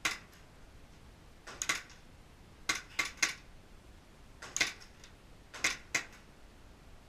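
Airsoft pistol shots: about ten sharp cracks fired in small irregular groups of one to three.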